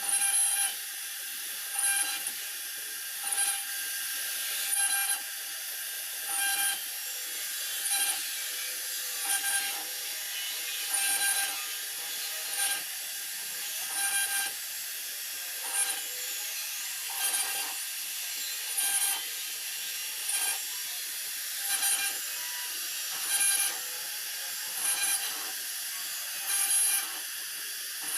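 CNC router spindle cutting into a lasani particle-board sheet: a steady high-pitched machining sound that surges louder about every second and a half in a regular rhythm.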